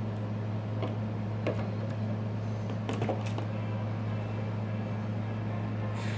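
A steady low hum runs throughout, with a few small clicks and taps from handling on top, about one a second in the first half and one more near the end.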